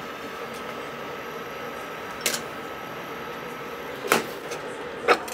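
NuWave portable induction cooktop running under a pan, a steady hum with a faint high whine. Three sharp knocks as the pan is handled, about two, four and five seconds in.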